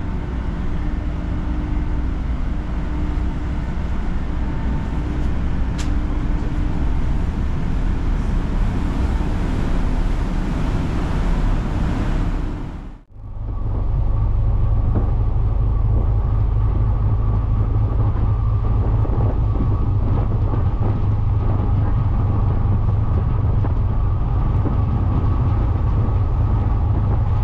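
Ship engine running steadily beside a moored passenger ferry. After a sudden cut about halfway through, a louder, steady low engine rumble with a hum, heard aboard a boat under way.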